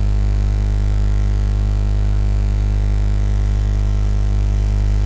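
Steady electrical mains hum in the recording, a loud low drone with a faint hiss over it.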